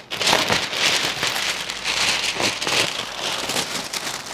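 Masking paper being pulled off freshly painted car bodywork and bunched up: a continuous crackling and crinkling of stiff paper.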